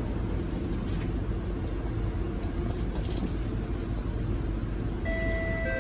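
Steady low rumble and hum inside a stationary SMRT C151C train car with its doors open. About five seconds in, the falling two-note door-closing chime begins.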